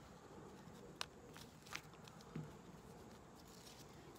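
Near silence with faint handling noise: a wristwatch's nylon strap and metal buckle being worked by hand, giving two light clicks, about one second in and just under two seconds in.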